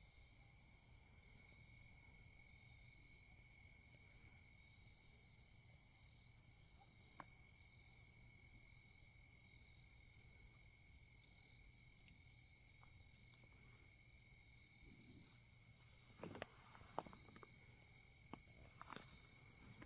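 Faint, steady trilling of crickets, a high tone that swells and fades every second or so over a lower steady one. A few light clicks and knocks come in the last few seconds.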